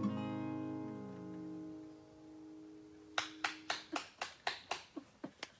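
Steel-string acoustic guitar strikes the song's final chord, which rings and fades away over about three seconds. Hand clapping follows, about four claps a second.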